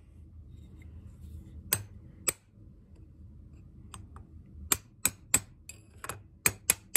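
Light hammer taps on a drift, knocking the old bearing race out of a classic Mini Cooper S rear wheel hub clamped in a vise. There are about nine sharp metallic taps: two a little under two seconds in, then a quicker run of taps near the end. The race comes out easily without hard hitting.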